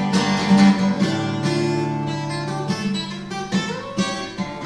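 Acoustic guitar playing an instrumental passage of a song accompaniment, with notes struck in a steady rhythm.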